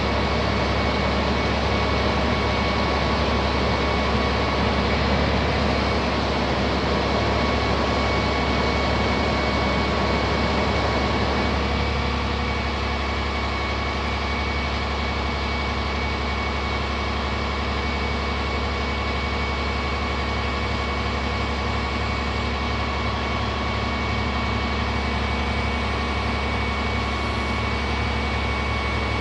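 The 10.8-litre six-cylinder diesel of a 1999 International Paystar 5000 bucket truck running steadily with a thin high whine over it while the boom is worked. About twelve seconds in the sound drops a little and settles into an even idle.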